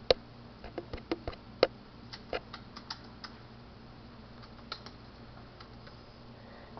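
Fingers tapping on the body of the camera: a run of sharp, uneven taps over the first three seconds or so, then a couple more near five seconds.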